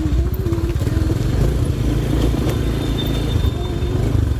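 Motorcycle engine running steadily while being ridden along a rough dirt track, a continuous low drone.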